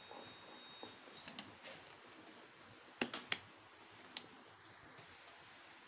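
A few faint, sharp plastic clicks and taps, the loudest two close together about three seconds in: a JYD DT9205A digital multimeter being handled, its rotary range selector turned and its test probes set against components on a circuit board.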